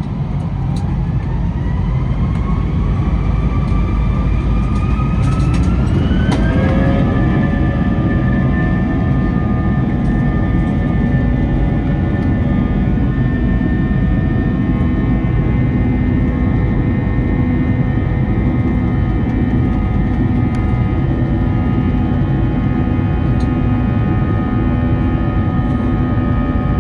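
Airbus A320-232's IAE V2500 jet engines spooling up to takeoff thrust, heard from inside the cabin: a whine that rises steadily for about six seconds, then holds at a level pitch over the heavy rumble of the takeoff roll.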